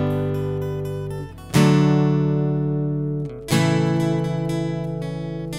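Solo acoustic guitar strumming chords. Each chord is struck once and left to ring and fade: one is already sounding, then two more land about two seconds apart.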